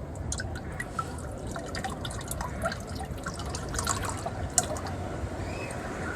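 Engine oil dripping and trickling as the oil filter is taken off, with scattered small drips and ticks and one sharp tap about four and a half seconds in.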